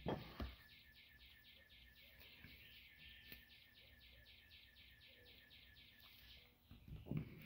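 Faint, rhythmic high chirping, about six even pulses a second, that stops shortly before the end. Two low bumps of handling noise sound, one right at the start and one near the end.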